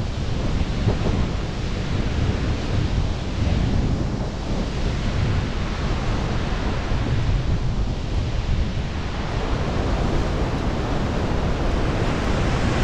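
Wind buffeting a helmet-mounted action camera's microphone: a loud, rumbling rush that swells and eases every few seconds.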